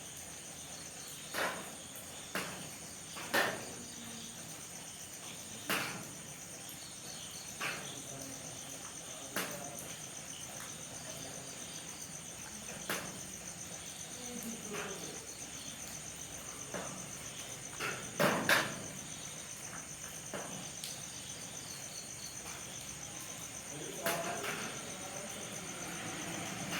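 Crickets chirring steadily, with light rain behind and scattered sharp drips tapping irregularly every second or two, a quick pair of louder ones a little past the middle.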